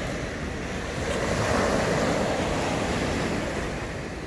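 Small surf breaking and washing up a sandy beach. The rush of water swells about a second in and eases off near the end, over a low rumble of wind on the microphone.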